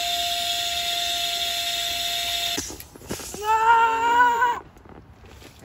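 Small electric air pump running with a steady hum and hiss as it inflates a beach ball, cutting off suddenly about two and a half seconds in. Then comes a loud, high-pitched drawn-out "ah!" from the person holding it, the loudest sound here.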